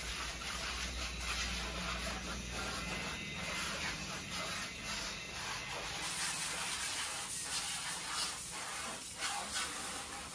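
Electric rotary car polisher running with a foam buffing pad on a car's painted bonnet, a steady machine hum with the hiss of the pad working rubbing compound over the paint.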